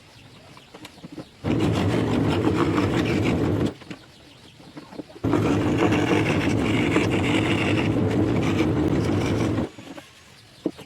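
Electric scroll saw running as it cuts wood, in two stretches of steady mechanical hum with short quiet breaks before, between and after.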